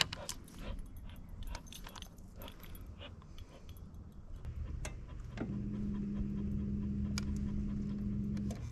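Light clicks and rattles of fishing line and reel being handled, then a steady low hum that starts about five seconds in and stops near the end.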